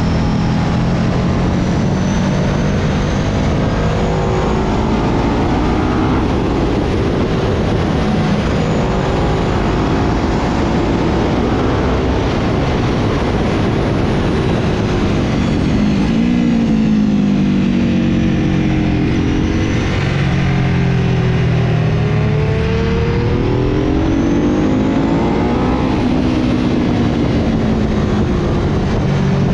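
Sport motorcycle engine at track speed, heard from on board the bike under heavy wind rush on the microphone. The engine pitch climbs and falls again and again as the bike accelerates out of and slows into the corners.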